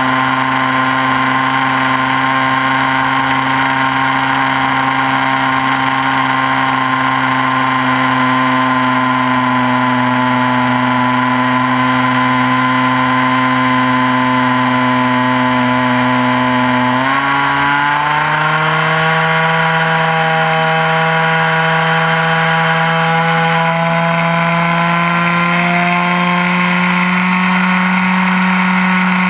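ASP 61 two-stroke glow engine of an RC model plane running at speed in flight, its pitch sagging slowly, then stepping up sharply about two-thirds of the way in and continuing to climb gradually.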